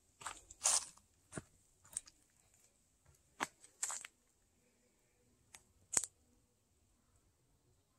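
Footsteps crunching on dry leaf litter and twigs, a few uneven steps in the first four seconds and a last sharp crunch about six seconds in.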